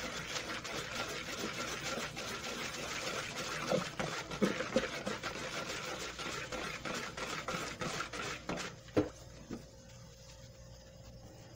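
Electric stick blender running in a plastic bucket, churning soap batter of used cooking oil and dissolved caustic soda to thicken it. It runs steadily, then stops about nine seconds in.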